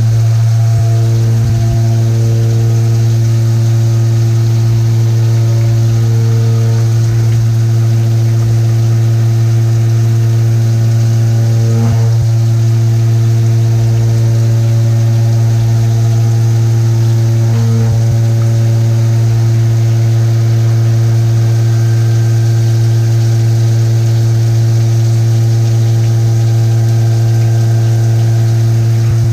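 Haas VF-3 CNC vertical mill face milling with a 2-inch face mill: a loud, steady hum with a stack of overtones, unchanged in pitch. A faint click comes about twelve seconds in and another about six seconds later.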